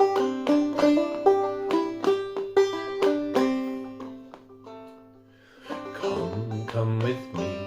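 Five-string banjo played clawhammer style in double C tuning, picking out a slow melody in ringing plucked notes. About four seconds in the notes are left to ring and die away, and the playing starts up again around six seconds.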